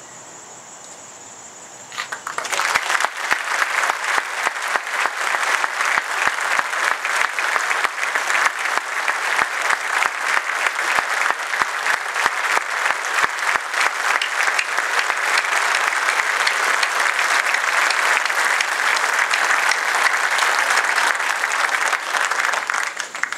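Large audience clapping steadily for about twenty seconds, starting a couple of seconds in and stopping just before the end.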